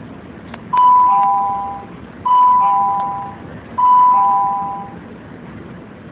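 Door-closing warning chime on a Chinese-built SuperVia commuter train: three two-tone ding-dongs, each a higher tone then a lower one, about a second and a half apart, over a low steady hum.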